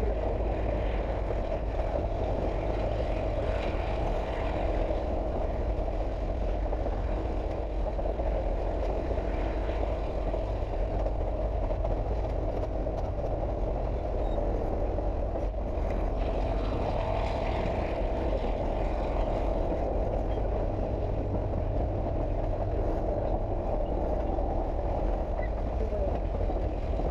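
Steady rumble of a Durango & Silverton narrow-gauge train running along the track, with faint voices in the background.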